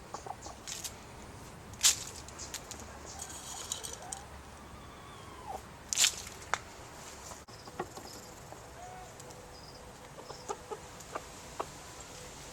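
Hens clucking now and then in short calls, with scattered sharp taps, the loudest about two seconds in and about six seconds in.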